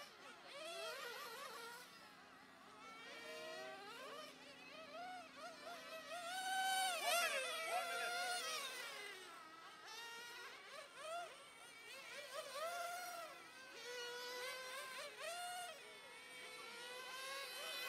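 Several 1/10-scale radio-controlled on-road touring cars racing, their motors buzzing and whining up and down in pitch as they accelerate and brake round the course. About seven seconds in, one car passes closest and loudest, its pitch rising and then falling.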